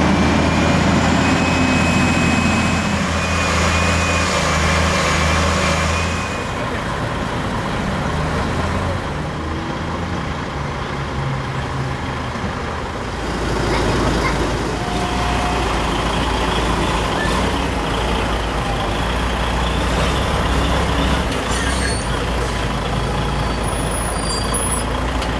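DAF truck tractor unit's diesel engine running at low speed. It is louder for the first six seconds or so, then settles to a steadier, quieter run.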